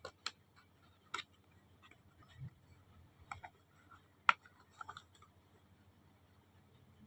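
A few scattered sharp clicks and light taps, the loudest a little past four seconds in, from skincare product packaging being handled and unpacked.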